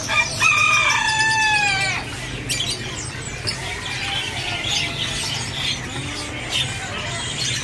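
A rooster crows once, a single long call of about a second and a half near the start, over the chirping and calls of many caged songbirds.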